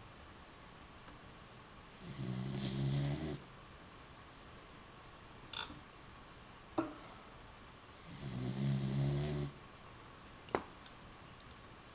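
Dachshund snoring in its sleep: two low snores, each over a second long, about six seconds apart, with a few short clicks in between.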